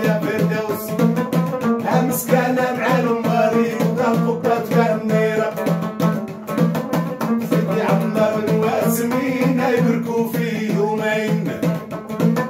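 A man singing a Moroccan folk song while accompanying himself on a long-necked plucked lute, strummed in a steady rhythm.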